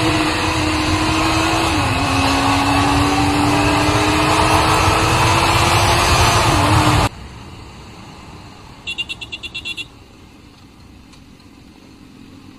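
Sport motorcycle engine running hard at high road speed, with heavy rushing noise over it; its pitch dips about two seconds in and then slowly climbs. It cuts off abruptly about seven seconds in, leaving a much quieter engine rumble, with a quick run of short high beeps a couple of seconds later.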